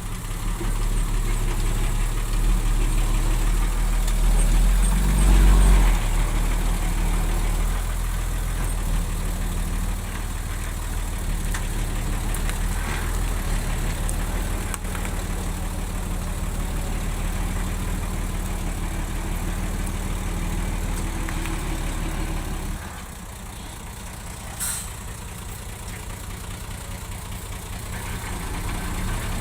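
Bulldozer's diesel engine running steadily, swelling louder about five seconds in, then dropping to a lower, quieter idle about two-thirds of the way through, with one sharp click shortly after, and picking up again near the end.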